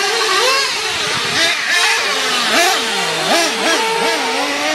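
Several petrol radio-controlled cars racing, their small two-stroke engines revving up and down. Several engine notes overlap, each rising and falling in pitch as the throttle opens and closes.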